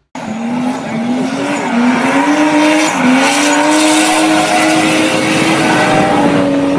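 A car running hard at high revs, over a loud rushing noise. Its pitch climbs in small steps during the first three seconds, then holds steady. The sound cuts in and out suddenly.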